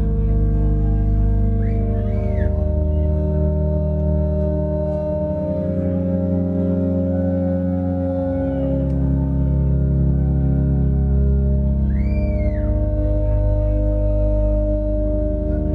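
Slow ambient music: held, sustained chords that shift every few seconds, with a high gliding tone that arches up and back down twice.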